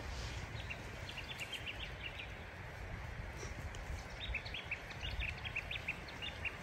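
A songbird calling in two runs of quick, short chirps, about a second in and again from about four seconds in, over a steady low rumble.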